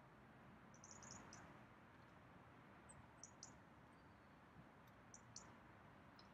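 Near silence, with a few faint, brief, high-pitched chirps in small clusters about a second in, around three seconds and around five seconds.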